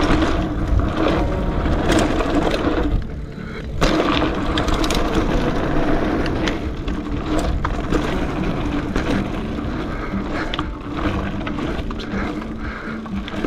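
Gravel bike tyres rolling over a packed-dirt jump line, with the bike rattling and knocking over the bumps. The noise dips briefly about three seconds in, then a sharp thud comes just under four seconds in.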